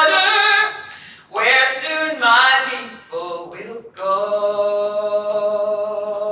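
A woman singing a slow folk song a cappella: two short sung phrases, then a long held note from about four seconds in.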